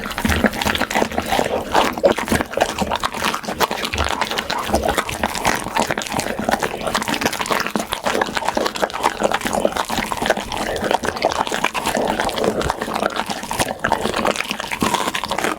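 Pit bull eating: a dense, continuous run of chewing and smacking sounds.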